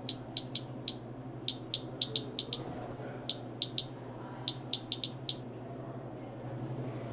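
Quick, short typing clicks, one per letter as a title is typed out on screen: about eighteen in four uneven runs. A steady low hum runs underneath.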